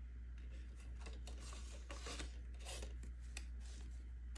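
Paper banknotes rustling and flicking softly as loose bills are sorted and counted by hand, in scattered light strokes.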